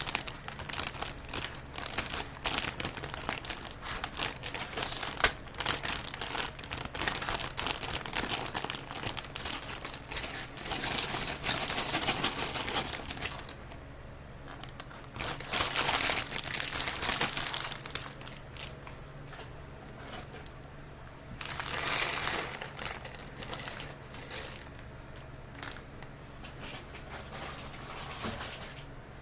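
Plastic bags of LEGO pieces crinkling as they are handled and opened. There is a long stretch of crackling for about the first half, then shorter bursts with quieter gaps between them.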